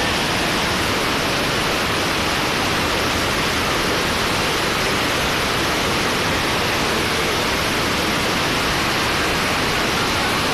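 Loud, steady rush of a river in flood, the roar of fast water pouring over rocks.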